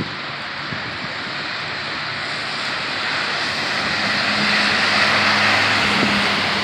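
Heavy rain pouring down steadily while a vehicle approaches on the flooded street, its engine hum and the hiss of water growing louder through the second half.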